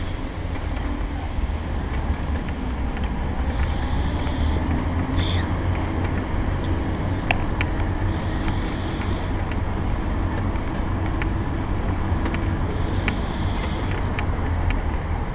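Electric mobility scooter driving along a paved path: a steady low rumble of motor and tyres on tarmac, with wind on the microphone and scattered light clicks from small bumps.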